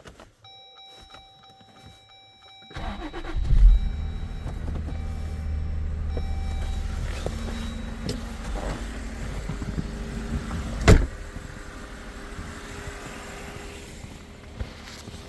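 Car engine cranking and catching about three seconds in, then running at a steady idle. A single sharp knock or thud comes about eleven seconds in.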